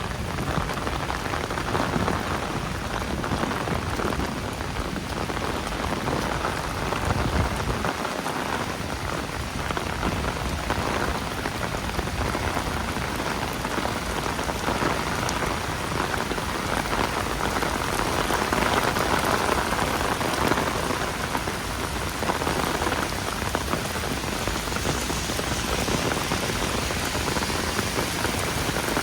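Steady rainstorm rain falling, an even, unbroken hiss of drops that holds at the same level throughout.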